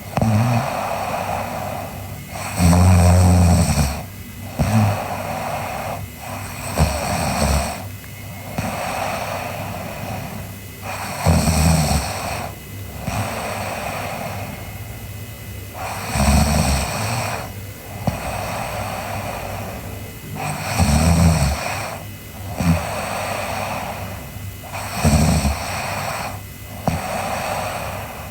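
A sleeping girl snoring in a slow, even rhythm, about one snore every four to five seconds, with breathy hissing between the snores.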